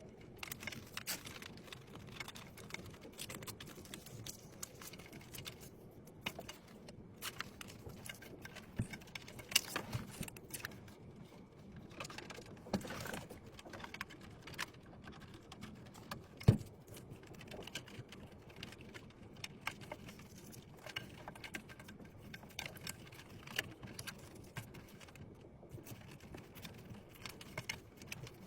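Irregular small clicks, taps and light rattles of computer parts being handled and fitted during a PC build, with one sharper knock about sixteen seconds in.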